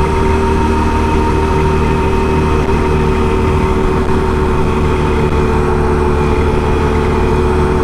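Can-Am Renegade 1000 ATV's V-twin engine running steadily, with a constant whine over the engine note and no change in revs.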